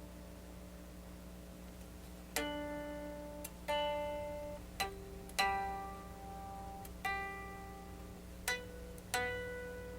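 Unplugged Gibson Flying V solid-body electric guitar with single strings plucked with a pick one at a time, about seven notes that each ring and fade, to check the intonation.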